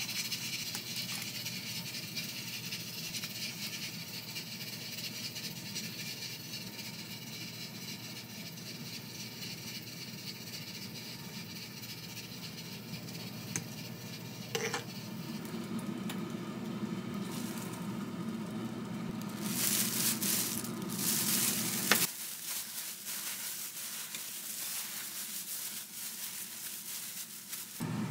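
Food sizzling in a frying pan, with a steady hiss that swells briefly about two-thirds of the way in, and a couple of sharp clicks.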